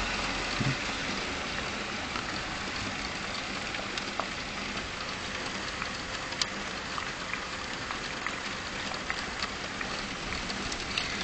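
Steady rain falling, with scattered drops tapping sharply close by.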